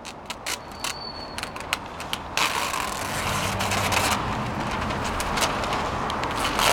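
Crinkling and crackling of a paper cover sheet being peeled off a banner, in sharp clicks, then a motor vehicle's engine running close by from about two and a half seconds in, a steady low hum under a wash of noise.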